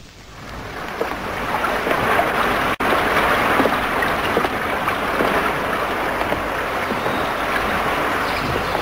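Mountain river rushing over rapids: a steady whitewater rush that fades in over the first second and cuts out for an instant about three seconds in.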